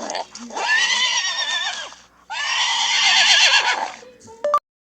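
Recorded horse whinnying twice, Google Assistant's horse sound. Each call lasts about a second and a half, with a shaky, quavering pitch. A brief click and tone follows near the end.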